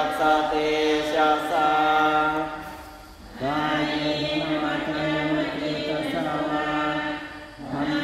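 Buddhist monks and lay people chanting Pali in unison during Thai evening chanting, a near-monotone recitation on held notes. The chant breaks off for a breath about three seconds in and again just before the end.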